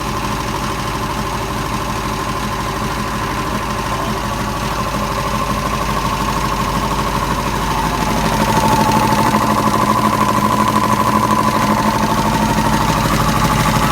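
Homemade air compressor running: a Harbor Freight piston pump driven by a 3-horsepower 220-volt electric motor, with a steady rapid pumping pulse. It gets a little louder from about eight seconds in.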